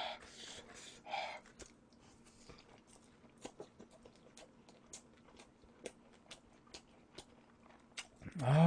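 Close-up chewing of spicy sauced boneless fried chicken: soft, scattered wet mouth clicks and smacks, a little louder at the start and again about a second in.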